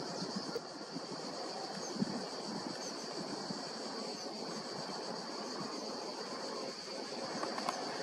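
Steady low rumble of distant traffic with a continuous high-pitched buzz over it and a few faint bird chirps.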